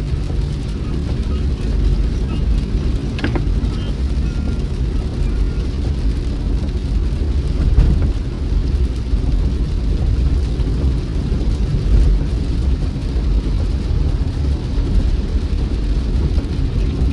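A car driving in rain: a steady low rumble of engine and tyres on the road, with a faint patter of rain over it. A brief click comes about three seconds in.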